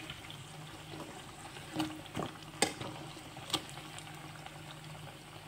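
Battered courgette flowers deep-frying in hot oil, a steady sizzle and bubbling, with a few sharp clicks about two, two and a half and three and a half seconds in.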